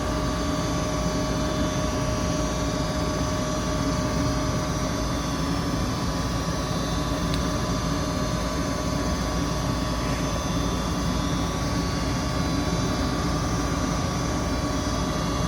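Goodman gas furnace running steadily on natural gas with its burners lit after a propane-to-natural-gas conversion: an even mechanical rush with a faint steady whine through it.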